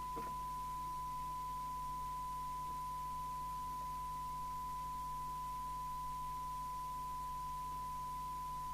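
Steady 1 kHz test tone: the signal generator's modulation demodulated and played through the TTI TCB565 CB radio's loudspeaker on receive.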